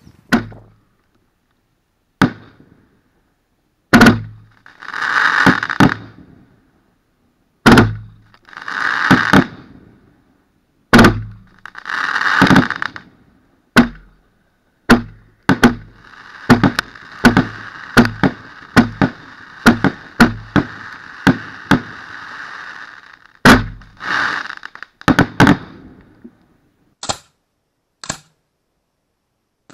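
Fireworks fired from ground-launched battery boxes at close range: a series of sharp bangs, several of them followed by a second or so of hissing. About halfway through comes a fast run of bangs over a steady hiss lasting several seconds.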